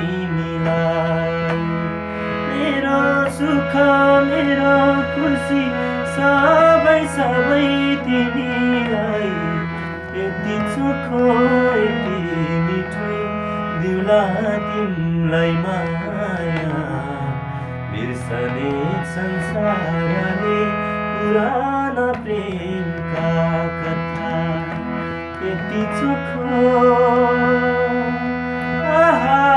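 Harmonium playing sustained chords and melody while a man sings over it in long phrases with gliding, wavering notes.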